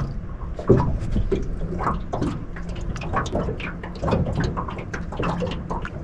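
Water lapping and slapping against a small aluminium boat's hull in irregular small splashes, with a sharper slap about a second in.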